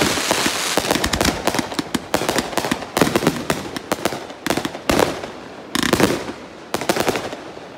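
Aerial fireworks shells launching and bursting in quick succession, a dense run of bangs and crackling with heavier clusters of reports, thinning out near the end.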